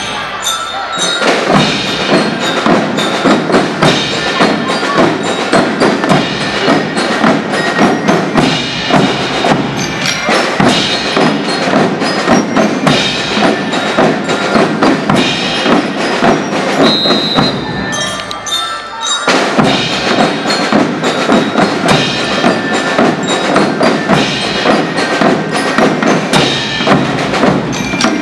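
Children's percussion band playing: snare drums, bass drum and timbales beating a busy, driving rhythm, with bell lyres ringing out the melody on top. The playing thins out briefly about a second in and again around the 18-second mark, then the full band comes back in.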